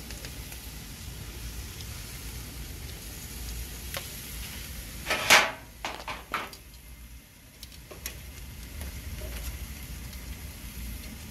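Metal tongs scraping and clattering against a gas grill's grate: one loud burst about five seconds in, then two shorter ones, over a steady low rumble.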